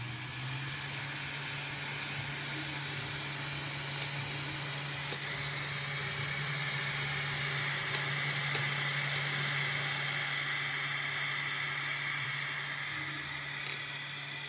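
Bambu Lab A1 3D printer running after power-on: its cooling fan whirs with a steady low hum and airy hiss, with a few light clicks. There is no scraping, because the fan no longer rubs after the inside of its housing was filed down.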